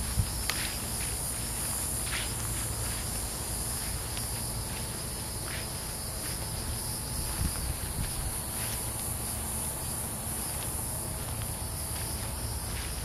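Steady, high-pitched chorus of insects in a summer garden, with a few soft clicks now and then.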